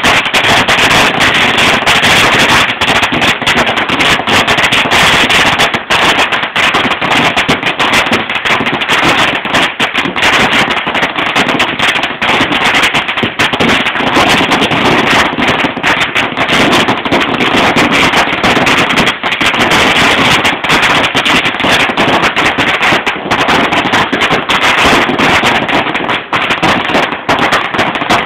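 A long string of Chinese firecrackers going off in a rapid, unbroken crackle of bangs, loud throughout.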